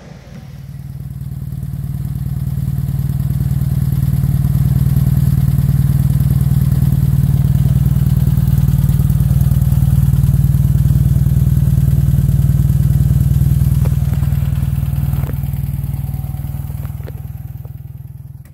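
A 1972 Fiat 500 L's air-cooled two-cylinder engine idling steadily through an Alquati aftermarket exhaust, heard close at the tailpipe. It grows louder over the first few seconds and fades away at the end.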